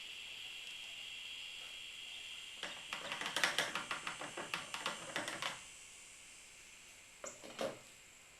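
Old mixed gasoline pouring from a jug through a funnel into a gallon container, with a steady hiss that fades out about five and a half seconds in. Over the last few seconds of the pour comes a quick run of clicks and knocks. Two sharp knocks follow near the end.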